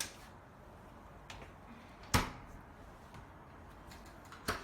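Three sharp knocks or clunks from handling the refrigerator and its fittings, the loudest about two seconds in.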